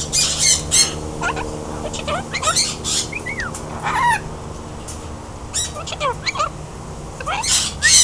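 Cockatoo calling: a few harsh squawks, then a series of whistled notes that slide up and down, then more harsh squawks near the end.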